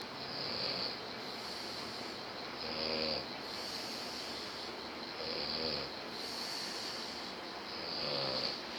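A man snoring in his sleep: four snores about two and a half seconds apart, each with a short pitched buzz.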